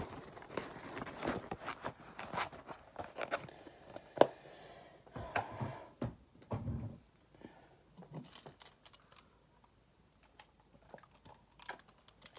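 Rustling and clicking of paper money and a wallet being handled, with one sharp click about four seconds in. The handling sounds thin out to near quiet over the last few seconds.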